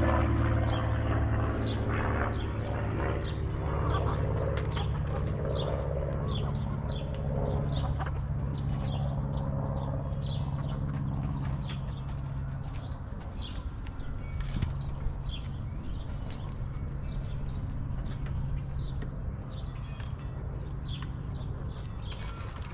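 Birds chirping rapidly and repeatedly in short high calls, over a low steady drone that fades away through the first half.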